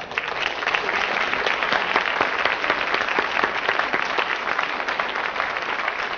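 Studio audience applauding, a dense, even spread of clapping that starts right away.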